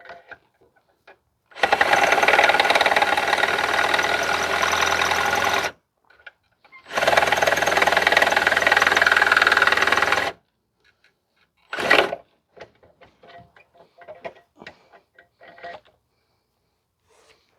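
Electric drill with a 5/16 bit running steadily in two runs of about four seconds each, boring through soft, rusted exhaust hanger metal. A short blip of the drill about twelve seconds in, then light clicks and handling noise.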